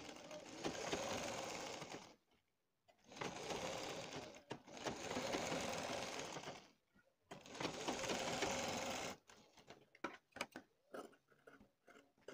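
Black domestic sewing machine stitching a seam in four runs of about two seconds each, stopping briefly between them as the fabric is repositioned. After about nine seconds the machine stops and only small scattered clicks and rustles of handled fabric remain.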